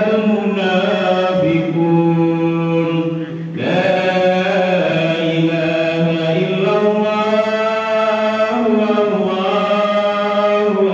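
A man's voice chanting Arabic in long, drawn-out melodic phrases, with a short break for breath about a third of the way through: the preacher intoning the opening praises of an Islamic sermon (khutbah).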